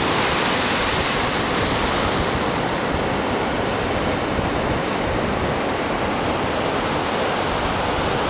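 Pacific surf breaking and washing up a sandy beach: a steady, loud rush of waves with no distinct crashes.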